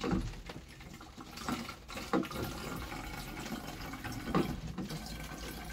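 Water running from the plastic tap of a large plastic rainwater container into a small plastic spray bottle, filling it up.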